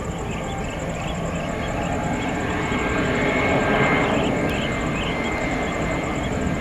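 Twin-engine jet airliner on final approach, its engines running with a broad steady noise and a high whine that grow louder as it nears, peaking about four seconds in. A light rhythmic chirping runs over it.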